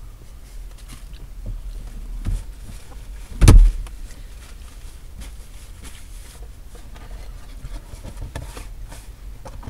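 A car's glove box lid shut with a single heavy thump about three and a half seconds in, after a lighter knock, among soft handling sounds of paper napkins and food packaging.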